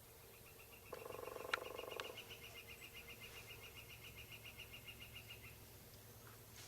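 A wild turkey gobbles once, a short rattling call about a second in, with two sharp clicks during it. A small bird follows with a long, even, high trill of rapid notes lasting about four seconds.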